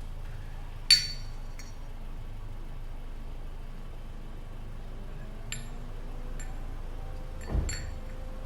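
Light metallic clinks and clicks of small hardware being handled: one sharp ringing clink about a second in, a few fainter clicks after it, and another clink with a dull knock near the end.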